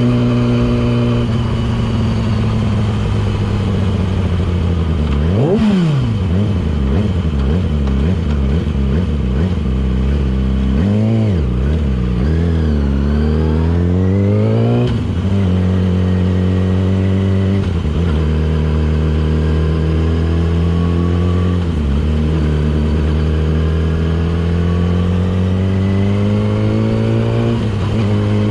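Yamaha R6's inline-four engine through a LeoVince aftermarket exhaust while riding: a quick rev spike about five seconds in, revs swinging up and down a little after ten seconds, several brief breaks in the engine note, and the revs climbing slowly near the end.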